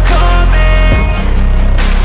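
Loud background music: a heavy electronic rock track with deep bass and a strong beat.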